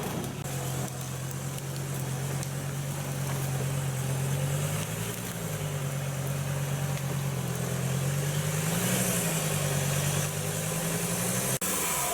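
Diesel engine of an off-road vehicle running at steady moderate revs while driving through mud, the revs rising briefly twice.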